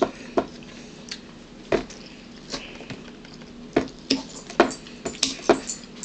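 A fork clicking and scraping against a bowl during a meal, giving sharp, irregular clicks about two a second over a faint low hum.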